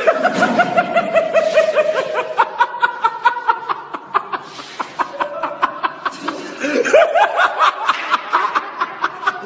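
Loud, high-pitched laughter in quick, rhythmic bursts, kept up without a break, with a fresh rising peal about seven seconds in.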